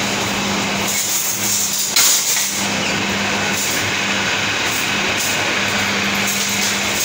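Metal wire shopping cart being pulled out of a stack, with a sharp clank about two seconds in, then rattling as it rolls over a tiled floor, over a steady low hum.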